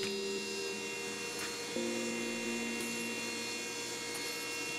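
Steady electrical hum with a few held low tones, shifting abruptly in pitch about two seconds in, with a low thump right at the end.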